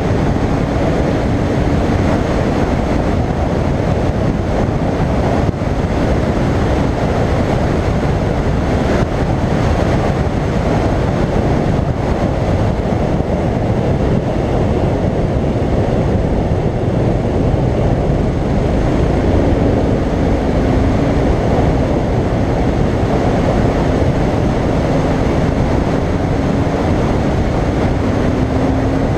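Royal Enfield Continental GT 535 motorcycle riding at speed: a steady rush of wind over the camera microphone, with the bike's single-cylinder engine running underneath. A faint steady engine note comes through at the start and again in the last third.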